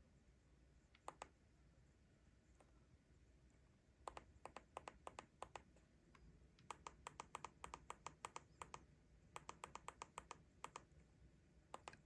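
Small sharp clicks: a pair, then three quick runs at about five clicks a second, and a last pair near the end.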